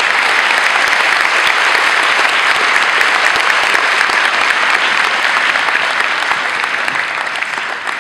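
Large seated audience applauding steadily, a dense clatter of many hands clapping that eases off slightly near the end.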